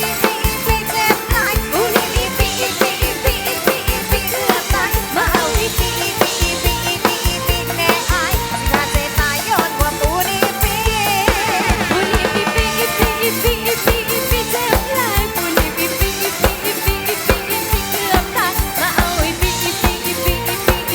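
Live band music with a drum kit keeping a steady fast beat under a wavering melodic lead, an instrumental stretch without singing.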